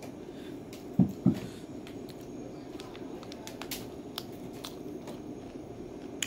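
Two dull thumps about a second in, then scattered light crunching clicks as a packaged duck foot snack with crunchy cartilage is bitten and chewed, over a steady background hum.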